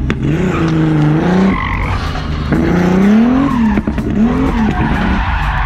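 Turbocharged BMW E36's M50 inline-six revving hard while drifting, with tires skidding. The pitch climbs and falls in short pulls that break off abruptly several times: the engine choking and losing power, which the driver puts down to a bad tune.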